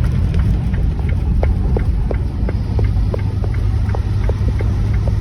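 Car driving, a steady low rumble of engine and road as heard inside, with irregular light ticks, several a second.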